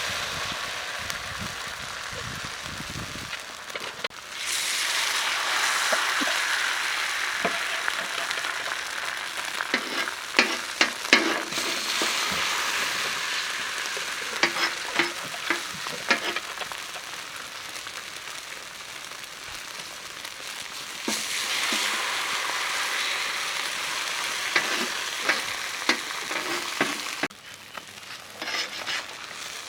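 Chicken omelette sizzling as it fries in a hot pan, with scattered sharp clicks and scrapes of a spatula working it. The sizzle drops and comes back up a few times.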